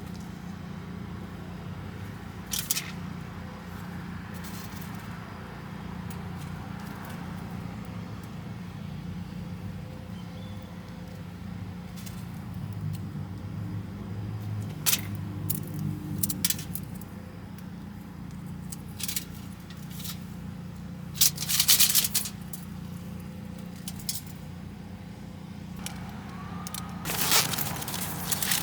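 Scattered clicks, rattles and scrapes of small items and containers being handled, over a steady low hum.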